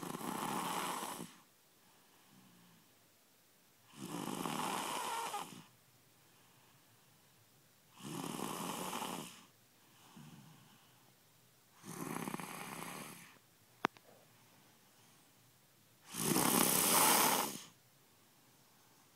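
Loud snoring, one long snore about every four seconds, five in all, the last the loudest. A single sharp click comes just before the last snore.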